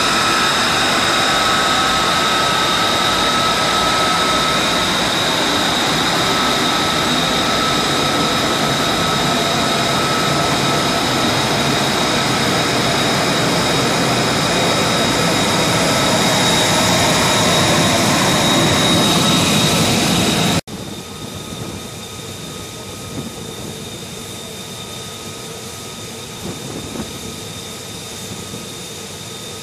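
F-35B jet engine (F135 turbofan) running loud and steady, with a high whine over the rush of the exhaust. After about 20 seconds it cuts abruptly to a quieter, steady jet engine sound.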